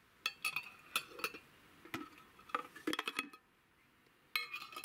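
Metal twist-off lids clinking against glass jars as they are set onto the rims, in three short bursts of light ringing clinks.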